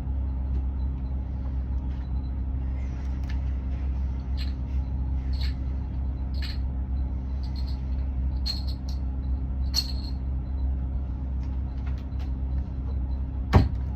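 Steady low hum, with faint scattered clicks and one sharp knock near the end.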